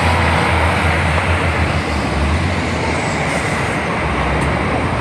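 Irish Rail 2800-class diesel railcar passing at close range, a loud, steady rumble of engine and wheels on the rails.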